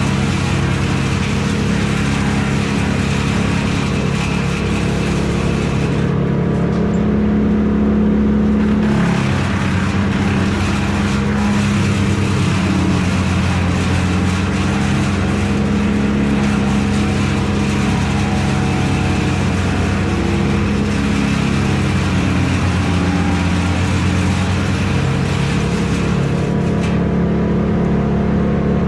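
A large engine running steadily at an even speed, with a noisy hiss above it that drops away briefly twice.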